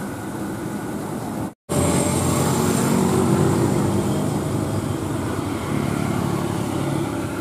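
Diesel engine of a Kobelco SK200 excavator running as the machine drives forward on its tracks, mixed with passing road traffic. The sound cuts out completely for an instant about a second and a half in, then comes back louder.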